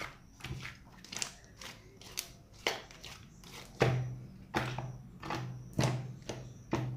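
Butter slime being pressed and poked with fingertips, giving short sticky clicks about twice a second. The clicks get louder about halfway through.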